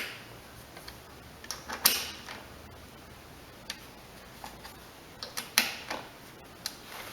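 Irregular clicks and clinks from hand tools and small parts being handled, coming in short clusters several times.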